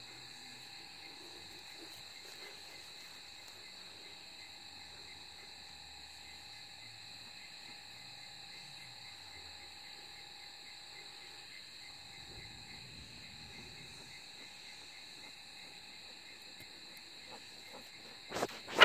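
Night-time insect chorus: a steady high-pitched chirring with a faint regular pulsing under it. A few loud knocks come near the end.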